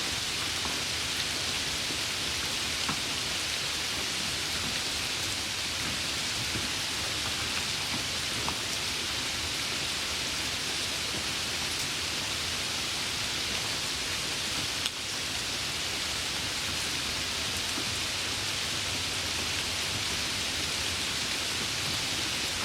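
Light rain falling: a steady hiss with a few faint individual drop ticks, and a brief dip in level about fifteen seconds in.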